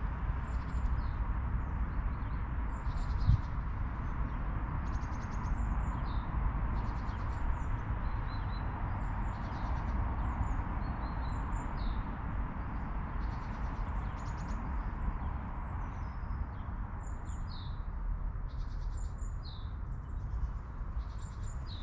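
Small birds chirping and trilling again and again over a steady low rushing noise, with one brief thump about three seconds in.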